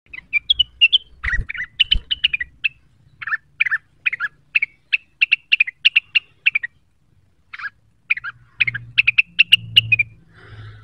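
Rengganis songbird singing a rapid chattering run of short, sharp notes, about four to five a second, with a pause of about a second partway through. Two soft low thumps come in the first two seconds.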